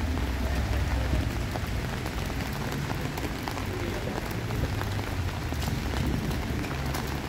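Steady rain falling on wet street paving, a continuous hiss dotted with many small drop ticks. A low rumble sits under it in the first second.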